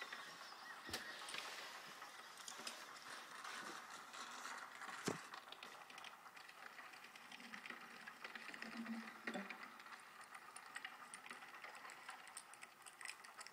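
Squirrels tapping and cracking walnut shells: a scatter of small irregular clicks and taps, one sharper crack about five seconds in, heard faintly through a TV speaker.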